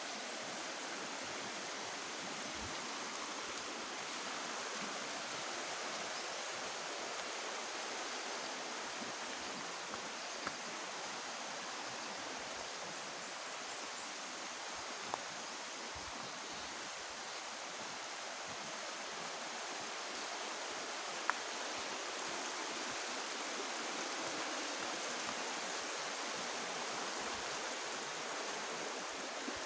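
Shallow, rocky river running over stones: a steady hiss of water, with a few faint, sharp ticks.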